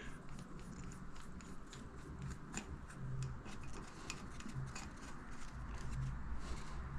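Hand tools and small metal parts clicking and tapping irregularly, many light ticks, as the ATV's engine is put back together after a valve-clearance check.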